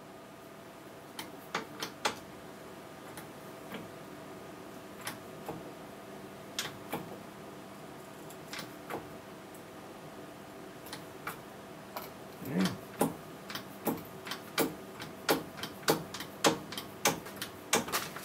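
Hand-pumped bottle-jack shop press pushing a worn die-cast crossfeed gear off its peened-over square shaft: sharp clicks, scattered at first, then about two a second and louder over the last six seconds.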